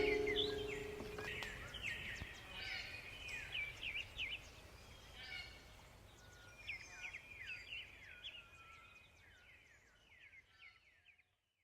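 A last strummed acoustic guitar chord dies away in the first second, then small birds chirp in quick runs of short rising and falling notes, fading out near the end.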